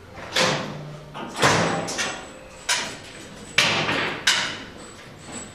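Guard covers over the band wheels of a Pilous CTR 800 S band sawmill being put on and pressed shut: about six sharp clunks and knocks, roughly half a second to a second apart.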